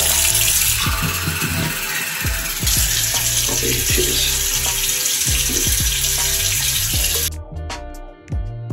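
Tap water running steadily from a mixer faucet into a bathroom sink, cutting off abruptly about seven seconds in.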